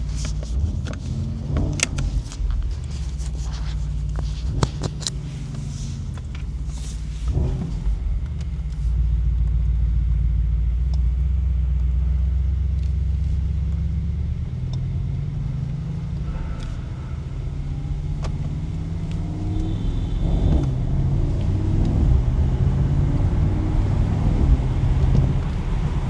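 Mercedes-AMG SL55's 4.0-litre twin-turbo V8 running on the move. A few sharp cracks come in the first eight seconds, then a steady low drone while cruising, then the note rises in pitch as the car accelerates in the second half.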